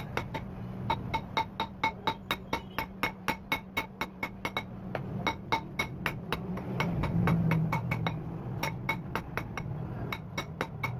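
Hand hammer striking a red-hot steel bar, a car axle being drawn to a point, on a block anvil. The blows come fast and even, about four a second, each with a bright metallic ring, pause for a second or two past the middle, then resume. A steady low hum runs underneath.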